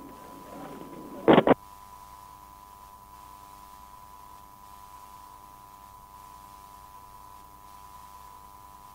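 Recorded telephone line after a call ends: a short loud click or clunk about a second and a half in, then a steady electrical hum of several close tones on the open line.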